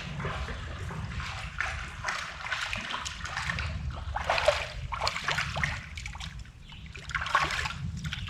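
Water splashing in irregular bursts as a hooked trout thrashes at the surface while it is reeled in, over the steady trickle of a shallow stream. The loudest splashes come about halfway through and again near the end.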